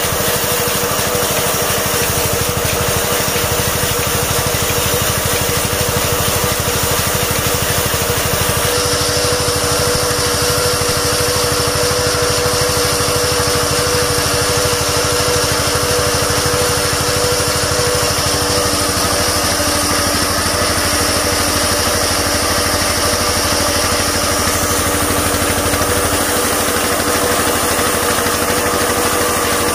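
Kirloskar 15 HP stationary diesel engine running steadily, belt-driving a band sawmill as the blade cuts through a log. A high steady whine joins about a third of the way in and stops near the end.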